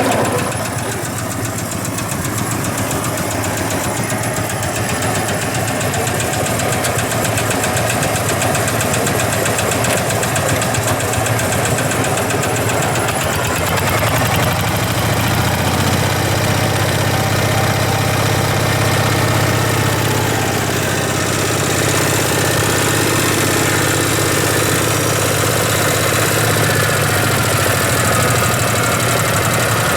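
Vintage engine running steadily with a knocking beat; its low note grows stronger about halfway through, then eases off again.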